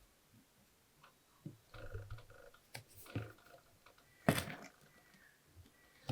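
Faint scattered clicks and knocks of small objects being handled, with one sharper, louder knock a little past four seconds in.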